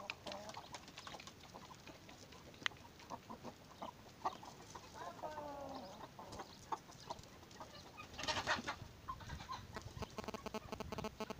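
Domestic chickens and roosters clucking at short, irregular intervals, with a louder burst about eight seconds in and a quick run of clucks near the end.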